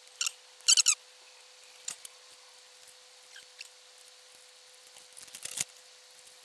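Small squeaks and clicks of hand work on a thin electrical cable with an improvised stripping tool: a couple of sharp, squeaky snips a little under a second in, a few faint ticks, then a cluster of clicks about five seconds in as a small plastic monitor housing is handled.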